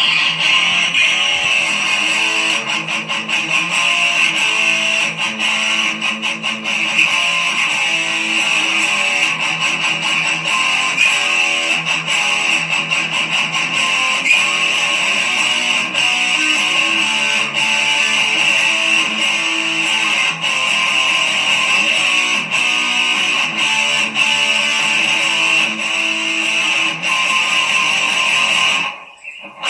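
Background music with guitar. It briefly drops out just before the end.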